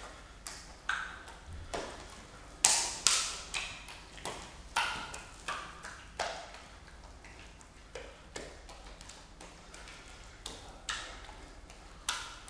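Wet hearts slapping into bare hands as they are juggled: about a dozen irregular soft smacks, each with a short echo, the loudest pair a little under three seconds in.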